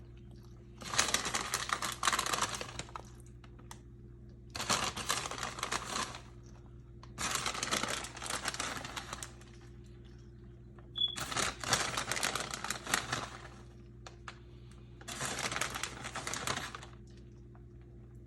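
Shredded mozzarella being sprinkled onto pizza wraps: five separate bursts of crinkly, crackly rustling, each one to two seconds long, with short pauses between, over a faint steady hum.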